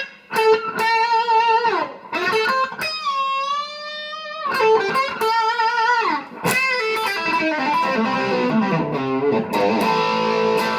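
Epiphone Les Paul electric guitar playing a lead line of single notes with string bends and wide vibrato, one long note held in the middle, and quicker notes near the end.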